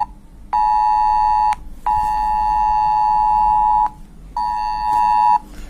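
Smartphone emergency-alert attention tone, two close pitches sounded together just under 1 kHz, coming as a one-second blast, a two-second blast and another one-second blast with short gaps between. It is the Cell Broadcast alert for an 'Extreme' emergency alert, here a sample test message.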